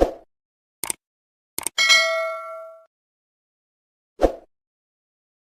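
A few knocks and clicks, then a metallic clang that rings on for about a second, and a dull thud near the end.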